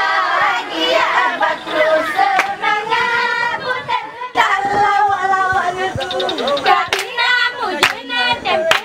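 A woman's solo singing voice, then a group of young female voices singing together with sharp hand claps struck now and then in the second half.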